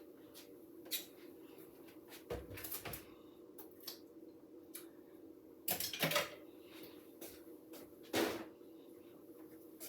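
Scattered kitchen handling sounds: a few short knocks and clatters, like things being set down or moved about, with a cluster of them a little before the middle and another near the end, over a steady low hum.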